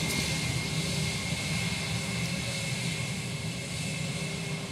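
Jet airliner's engines running steadily at low power, a constant noise with a steady high whine.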